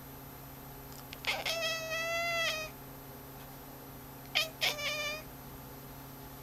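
Domestic cat meowing twice: one long, drawn-out meow about a second in, then near the end two short chirps running into a shorter meow.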